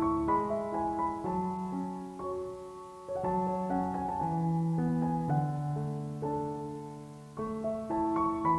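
Background piano music: a melody of held notes over chords.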